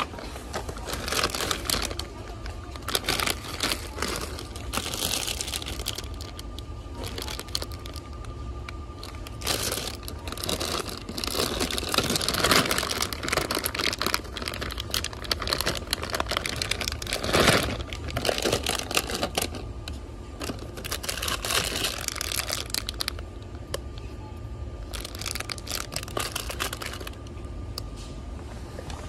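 Plastic candy bags crinkling as they are handled, in irregular bursts of crackle, with a faint steady tone and low hum underneath.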